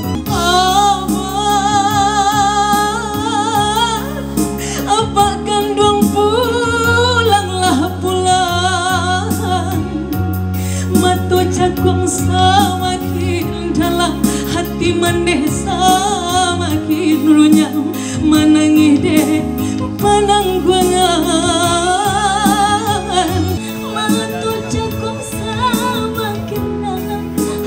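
A woman singing a Minang song into a microphone, holding long notes with a wide vibrato, over amplified instrumental accompaniment with a steady bass line.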